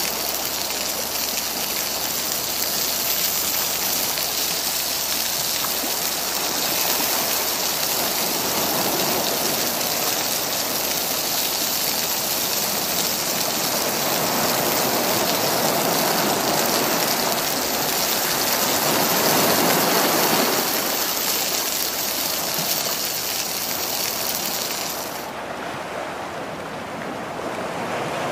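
Water spinach sizzling as it is stir-fried and turned with a wooden spatula in a steel wok, over the wash of sea water on the shore. About 25 seconds in, the sizzle stops and only the lapping of waves remains.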